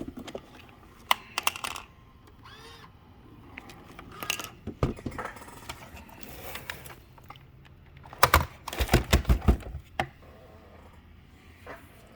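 Scattered clicks and knocks of handling, with a quick run of about eight loud knocks about eight seconds in.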